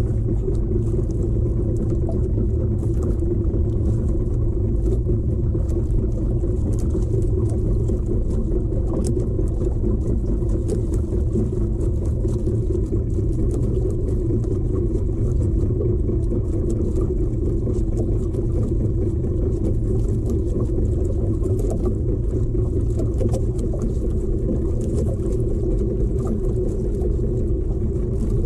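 Small outrigger fishing boat's engine running at a steady speed, a constant low rumble with no change in pitch.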